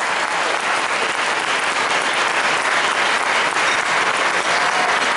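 Audience applauding steadily: many hands clapping together as a dense, even patter.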